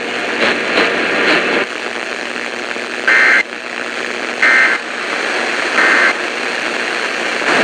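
Radio static hiss with three short two-tone digital data bursts about a second and a half apart. This is the EAS/SAME end-of-message code, which marks the close of the severe thunderstorm warning broadcast.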